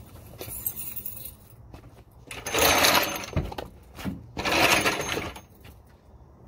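Two short bursts of mechanical noise from under a diesel pickup during a test start after a fuel-filter change, each about a second long, the first about two and a half seconds in and the second about two seconds later.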